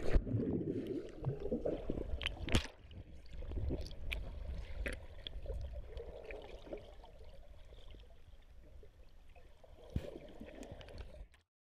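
A dog plunging into water and swimming, heard muffled from underwater: a splash at the start, then churning, gurgling water with a few sharp knocks. The sound fades and cuts off near the end.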